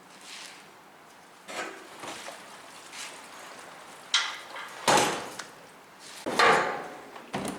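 Irregular knocks and clunks, about eight in all, as the wheel and axle parts of a plastic portable RV waste tote are worked loose. The loudest two come about five and six and a half seconds in.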